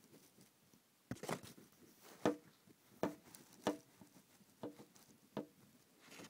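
A run of about seven light, irregular knocks, each with a brief ring, typical of the hand-held camera bumping against the terrarium glass.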